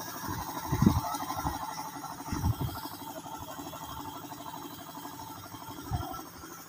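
Greenland silage round baler running, a steady fast mechanical rattle from its feed conveyor and rollers as chopped fodder goes in, with a few dull thumps.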